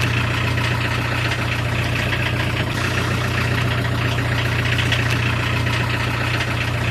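Volkswagen Transporter T3 engine idling steadily, with an even low hum.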